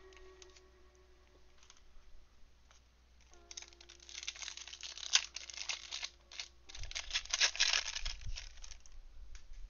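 Foil trading-card pack wrapper being torn open and crinkled by hand, in two spells of crackling, the first about three and a half seconds in and the second just after, over quiet background music.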